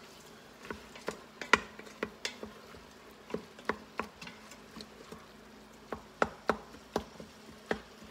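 A utensil knocking and scraping against a stainless steel Instant Pot inner pot as ground beef and onions are stirred while browning on sauté. The knocks come irregularly, a few a second at times, over a faint steady hum.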